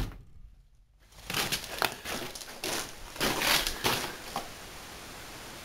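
Footsteps crunching on a gravel floor: a run of irregular steps starting about a second in and stopping a little past the middle, followed by a faint steady hiss.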